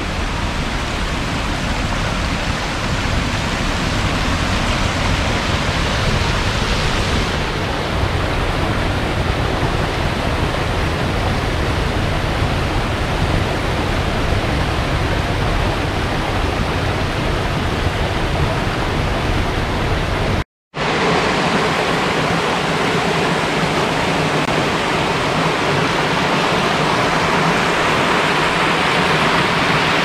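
The Braid Burn, a shallow rocky stream, rushing and splashing over stones and a small weir: a steady rushing noise. It cuts out for a split second about two-thirds of the way through, then resumes with more hiss and less low rumble.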